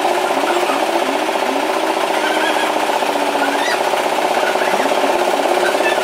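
Band sawmill machinery running with a loud, steady, fast rattle, with a lower whine underneath that repeatedly swoops up and dips and holds steady for about a second midway.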